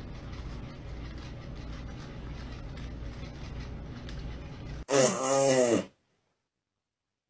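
A hairless Sphynx cat lets out one loud yowl about five seconds in. It lasts about a second and wavers up and down in pitch, over faint steady room noise.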